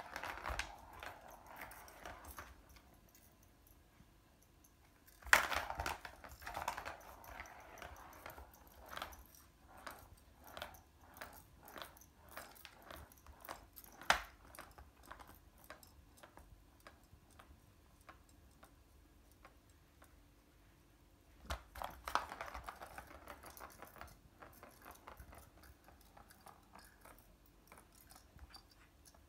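The ball of a Catit Senses Speed Circuit cat toy rattling and clicking around its plastic track as a kitten bats it. It comes in bursts of rolling rattle between strings of separate clicks, with sharp knocks about five and fourteen seconds in.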